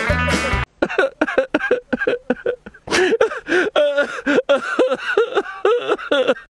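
A brief bit of guitar music cuts off just under a second in. A person's voice follows, making a rapid run of short, wordless vocal sounds that bend up and down in pitch.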